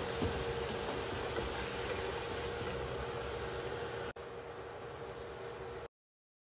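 Potato fries sizzling in hot deep-frying oil as a steady hiss while a wire skimmer lifts them out. After about four seconds the sound drops quieter, then cuts to silence near the end.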